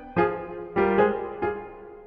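Background piano music: single notes or chords struck about every half second, each ringing and fading before the next.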